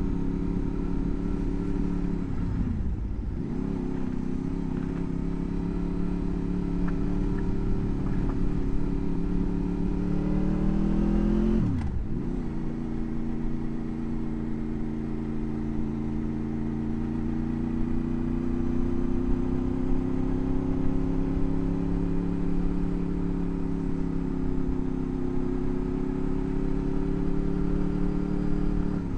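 Motorcycle engine running under way. The engine note dips sharply and climbs back at two gear changes, about three seconds in and about twelve seconds in. The note rises just before the second change as the bike accelerates.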